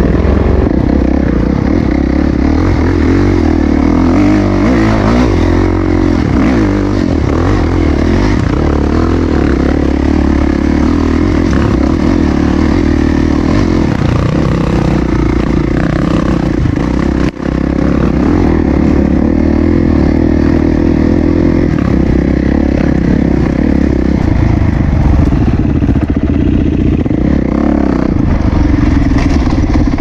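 Dirt bike engine running continuously under way on rough trail, its speed rising and falling a little with the throttle, with clatter from the bike over the ground. The sound drops out for an instant about seventeen seconds in.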